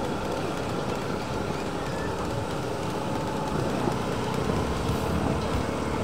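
Motorcycle engine running steadily while the bike rides along at low speed, with road noise.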